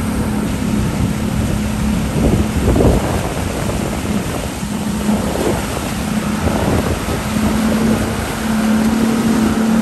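Motorboat's engine running steadily under way, a low drone that dips and comes back, with wind buffeting the microphone.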